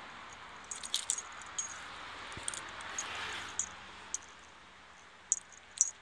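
Scattered small, sharp clicks and light jingles, about a dozen, the loudest about a second in and near the end, over a faint hiss that fades.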